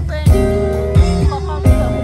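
Two acoustic guitars strumming chords in a live acoustic pop song, with three strong strums about three-quarters of a second apart and the chords ringing on between them.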